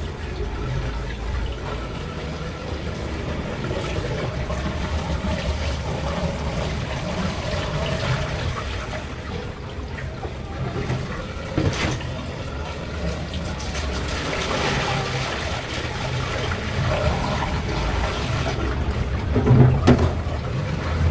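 Water poured from a plastic basin onto a tiled bathroom floor and running off, with a louder thump near the end. The floor drain is taking the water freely, now clear of leftover renovation cement.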